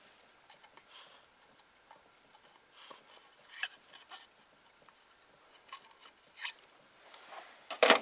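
A pocket knife blade scraping and prying at the old rubber O-ring on an oil filter canister cap to work it off, as a series of short scrapes and clicks that grow louder near the end.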